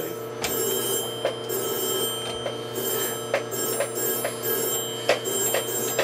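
Microwave oven running with a steady electrical hum, and sharp clicks roughly once a second.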